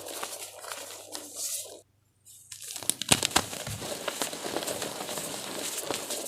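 Crumbly powder blocks being crushed, giving a steady crunching and crackling. The sound drops out briefly just before 2 s, then a few sharp cracks come a second later before the crunching carries on.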